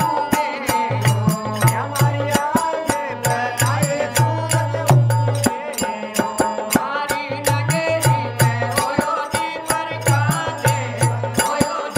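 Rajasthani devotional bhajan: a dholak beats a steady rhythm with deep bass strokes, while small hand cymbals (manjira) strike about three to four times a second. A harmonium holds sustained notes under men singing.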